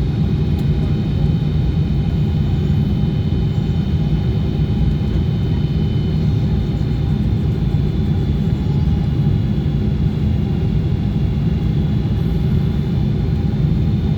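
Steady cabin noise inside a Boeing 777-200ER airliner descending toward landing: a constant low rumble of airflow and engines, with faint, steady high tones running over it.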